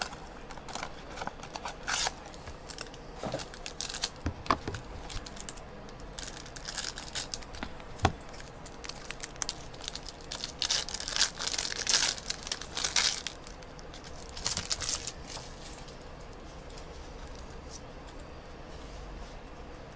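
A cardboard mini box of trading cards being torn open and its packaging crinkled, with clicks and rustles from handling. The tearing and crinkling is loudest about ten to thirteen seconds in, and it settles down over the last few seconds.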